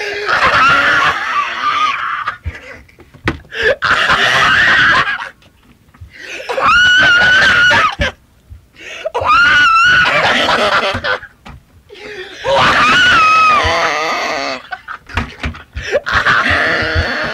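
A man's high-pitched wheezing laugh, like a horse's whinny, coming in repeated wavering bouts of about two seconds each with short breaks for breath.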